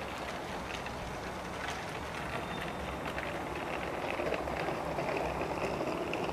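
Strong wind buffeting the microphone over a steady distant rumble, which grows a little louder in the second half.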